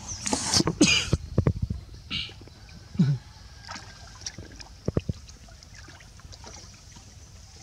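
Water splashing and sloshing in a plastic tub as baby macaques swim and scramble about in it. The splashing is busiest in the first second and a half, then comes as a few single splashes and knocks.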